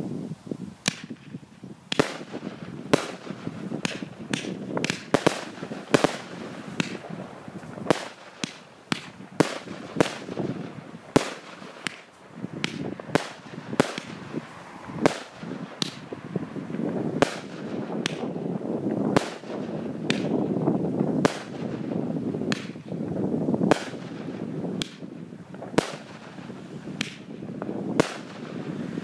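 Cosmic Fireworks 'Flaming Phoenix' 133-shot single-ignition firework cake firing, with sharp bangs about one to two a second. Between the bangs there is a continuous noisy rush that gets heavier in the second half.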